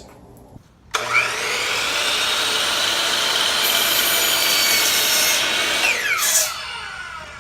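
Electric power saw cutting a wooden board to length: the motor spins up with a rising whine about a second in, the blade runs through the wood for about five seconds, then the motor winds down with a falling whine near the end.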